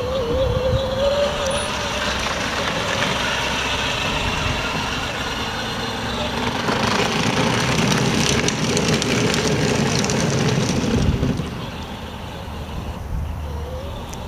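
Children's battery-powered ride-on ATV driving along a paved path towing a plastic wagon: its electric motor whines and its plastic wheels roll. There is a wavering whine at the start, and a louder steady rush from about halfway through that drops away about three-quarters of the way in.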